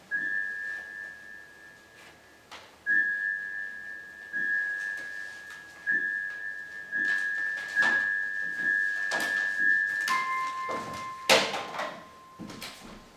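A steady, high, whistle-like tone held for several seconds with a few short breaks. About ten seconds in it changes to a pair of steady tones an octave apart. Several knocks and thumps sound over it, the loudest one about eleven seconds in.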